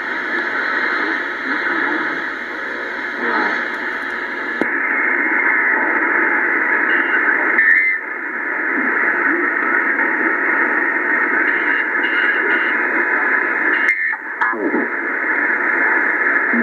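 Receiver audio from a Cobra 148 GTL CB radio converted with a DDS VFO kit, tuned around 7.11–7.13 MHz: steady band hiss and static. About four and a half seconds in, the sound narrows and turns duller as the receiver switches from AM to lower sideband. Brief whistles come as the dial is turned across signals.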